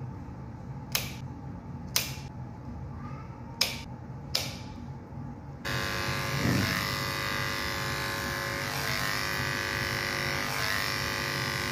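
A few sharp snips of a hand nail clipper cutting a rabbit's claws, then, about six seconds in, an electric pet hair clipper switches on and runs with a steady hum.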